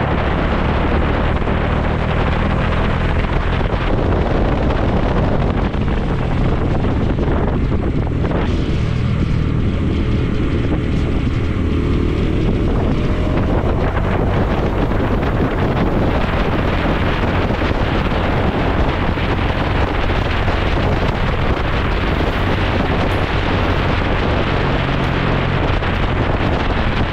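Bajaj Dominar 400's single-cylinder engine running steadily at cruising speed, under heavy wind noise on the microphone. The wind noise eases for a few seconds about eight seconds in.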